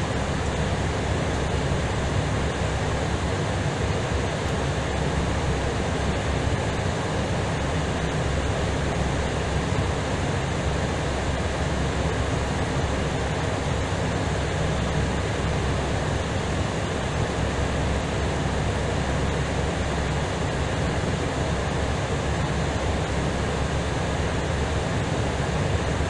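Steady, even rushing noise on the flight deck of an Airbus A320ceo on approach: air and engine noise heard inside the cockpit.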